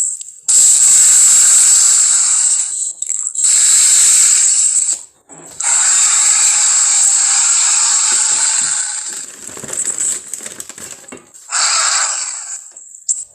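Film monster sound effect: a series of loud, long hisses with short breaks between them, and a rattling, sputtering stretch before a final short hiss.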